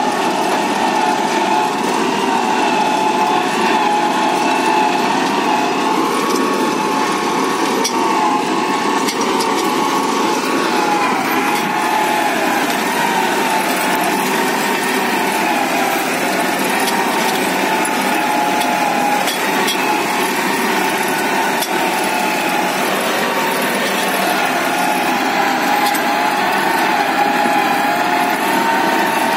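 Tractor engine running steadily under load while pulling a hydraulic reversible plough through hard, cloddy soil, with no change in speed.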